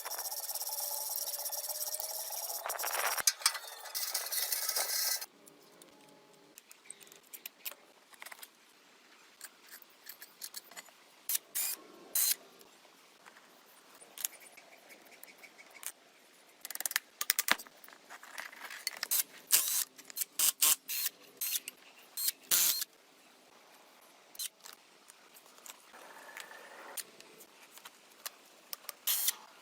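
Workshop work sounds: a steady loud hissing noise that cuts off suddenly about five seconds in, then scattered light clicks, scrapes and metallic clinks of hand tools.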